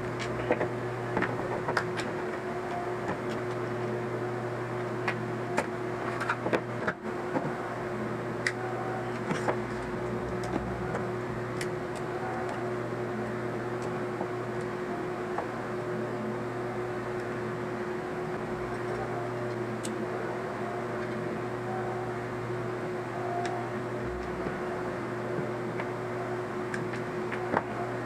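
A steady machine hum, with scattered light clicks and taps, several of them bunched together near the middle.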